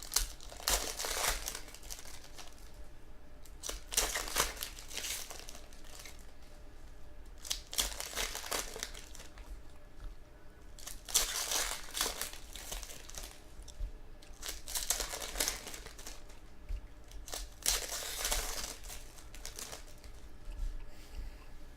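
Trading card pack wrappers being torn open and crumpled, in about six separate bursts a few seconds apart.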